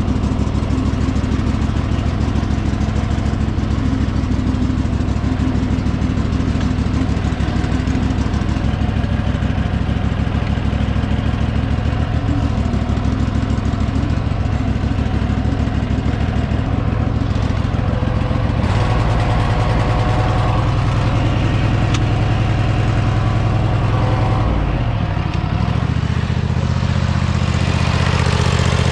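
The 23 hp Kohler V-twin engine of a Husqvarna zero-turn mower runs steadily while the mower is driven. Its tone shifts about two-thirds of the way through, with a brief falling sweep near the end.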